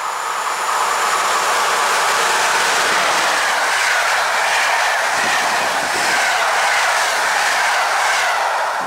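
An EP07 electric locomotive and its Intercity passenger coaches passing at speed: a loud, steady rush of wheels and air with some wheel clatter, easing as the last coach goes by near the end.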